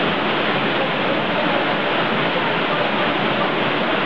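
Waterfall pouring into a rock plunge pool: a steady, even rush of falling water.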